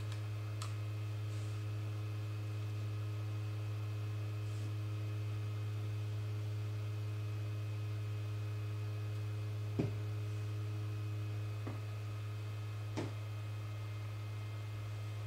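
Steady electrical mains hum from the bench setup, with a few faint clicks of small tools handled on the bench; the sharpest click comes about ten seconds in and another about thirteen seconds in.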